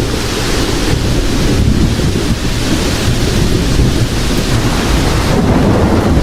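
Steady downpour of heavy rain over a continuous low rumble of thunder, the rumble swelling slightly now and then.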